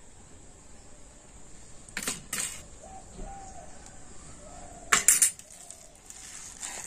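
Metal spoon clinking against a stainless steel bowl as gram flour is spooned into hand-mixed cabbage batter: a pair of clinks about two seconds in and a louder pair about five seconds in.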